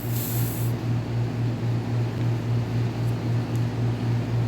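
A short aerosol spray hiss in the first half second or so, over a steady low machine hum that pulses about three times a second.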